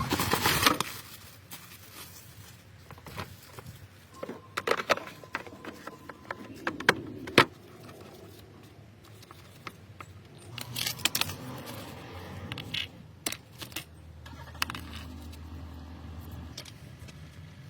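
Hand work on a car: scattered clicks, light metallic clinks and short scrapes of parts and tools being handled, uneven and with quiet gaps between.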